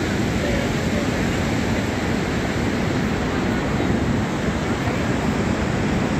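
Steady roar of Niagara Falls: an even rushing noise that does not change.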